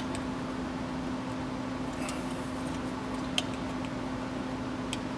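A few small metallic clicks as needle-nose pliers bend back the factory-staked tabs on a clock's metal can, the sharpest about halfway through, over a steady background hum.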